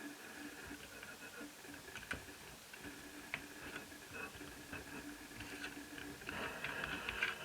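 Light clicks and taps of small netbook parts being handled and fitted by hand, scattered at first and growing busier near the end.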